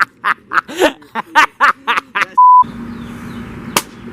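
Rapid talking cut off about two and a half seconds in by a short, loud, steady censor bleep, a single beep tone dubbed over a word. After it comes a quieter background with a low hum and one sharp click near the end.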